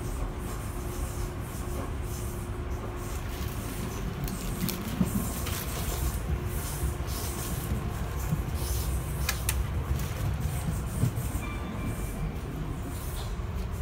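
Class 465 Networker electric multiple unit running, heard from inside the carriage: a steady rumble of wheels on rail with a faint steady hum and a couple of sharp clicks.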